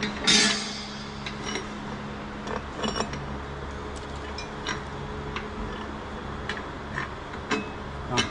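Irregular metallic clinks and clicks of tools and steel fittings being handled on a pipe plug, with a louder clatter about half a second in, over a steady low hum.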